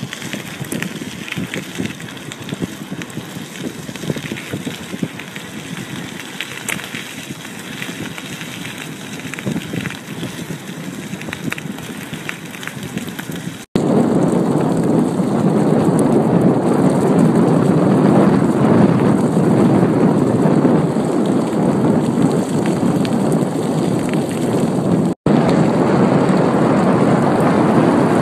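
Wind rushing over the microphone while riding along a gravel path, with the crackle of tyres on the surface. About halfway through it cuts and becomes louder and deeper.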